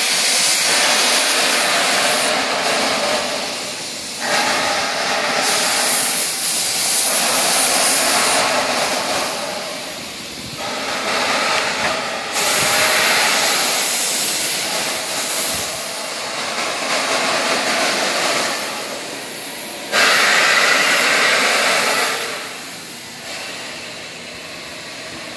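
Narrow-gauge coal-fired steam locomotive backing slowly into a roundhouse stall, releasing steam in long loud hisses that swell and fade every few seconds and die down near the end.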